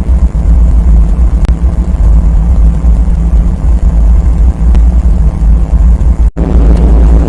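Very loud, low rumbling noise, steady and heavy in the bass, which breaks off suddenly for an instant about six seconds in and then starts again.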